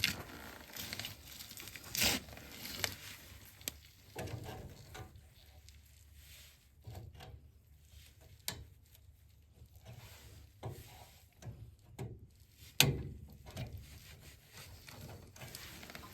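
Irregular clicks, snaps and small plastic knocks from a furnace control circuit board being worked loose from its mounting tabs and pulled out by hand, with the sharpest snap about 13 seconds in.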